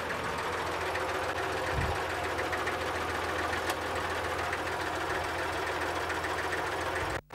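Tractor engine running steadily with an even, rapid knocking beat as the tractor moves slowly. The sound cuts out for a moment near the end.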